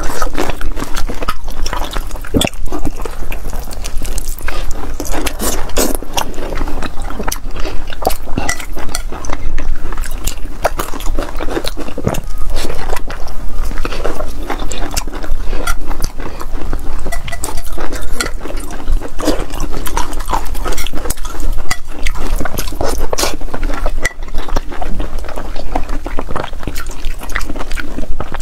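Close-miked wet chewing and smacking of braised pork skin and glass noodles, a dense run of sticky clicks and squelches, with occasional sharper clicks from chopsticks and the metal pot.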